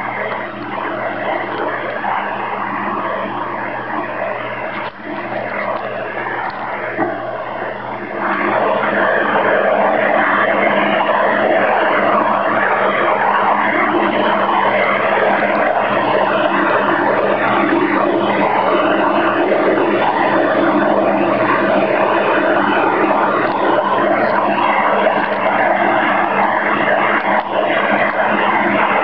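Shortwave receiver noise from an Icom IC-756 Pro III in AM mode: a dense, rasping interference noise with a steady low hum under it, loud enough to blot out any reception. It gets louder about eight seconds in. The noise's source is unidentified.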